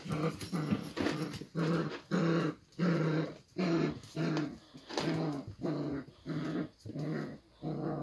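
Cockapoo puppies growling while tugging on a cloth, in short repeated growls about two a second.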